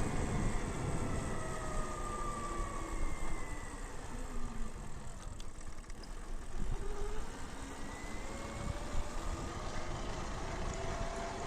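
Electric bike motor whining, its pitch falling as the bike slows and then rising again as it speeds up, with wind rumble on the microphone.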